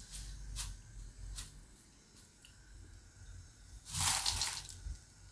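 Freshly fried corn poha flakes tipped from a wire strainer into a steel bowl, a dry, crisp rustle about four seconds in. Before it, a couple of light clicks of the strainer.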